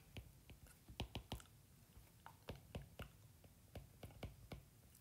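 Faint, irregular light clicks of a stylus tip tapping and dragging on a tablet's glass screen during handwriting.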